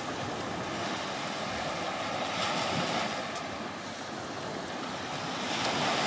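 Sea surf washing on a sandy beach, with wind on the microphone. The wash swells about two seconds in and again near the end.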